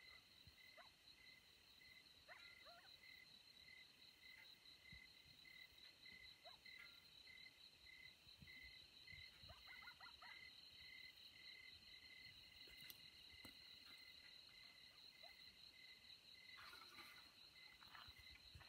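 Faint night chorus of insects: steady, high, pulsing trills, with a few faint short calls mixed in.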